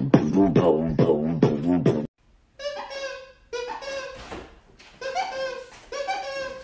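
Beatboxing: a dense rhythmic run of mouth percussion and voice, then, after a brief silence, four short pitched vocal phrases repeated about once a second.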